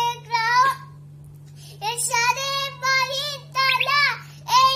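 A young girl's voice in a sing-song recitation with long held notes, pausing for about a second near the start. A steady low hum runs underneath.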